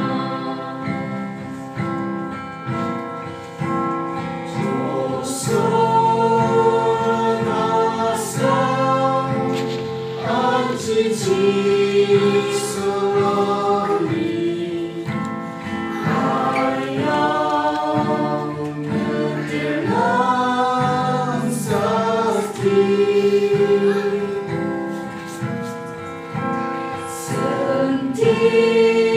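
A small group of men's and women's voices singing a hymn together in held, slow-moving phrases, accompanied by a strummed acoustic guitar.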